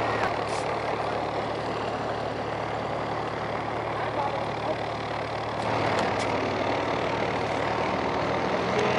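A steady engine hum, as of an engine idling, with broad noise over it. It grows a little louder about six seconds in.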